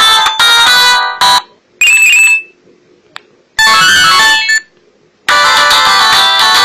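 Polyphonic ringtones from an LG RD2030 CDMA mobile phone. One electronic melody stops about a second and a half in. A short high tone, a click and a brief melodic snippet follow with gaps between them, and a new ringtone melody starts about a second and a half before the end.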